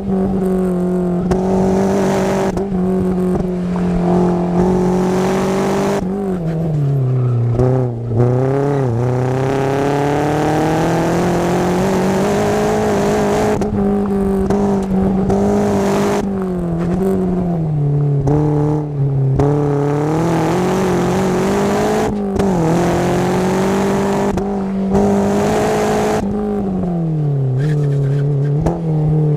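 Car engine running under load through an autocross run. The note holds steady, dips in pitch several times and climbs back each time.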